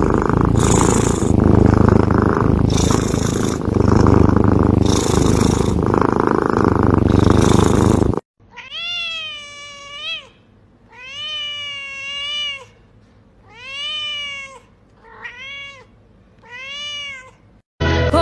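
A cat purring loudly and steadily, with a breathy hiss swelling about every two seconds. It cuts off, and a different cat then gives six long meows that rise and fall in pitch, the last few shorter.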